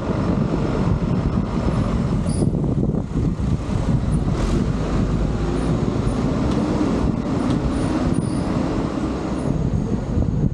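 Steady motor-vehicle noise with a heavy low rumble from wind, unbroken and without any clear single event.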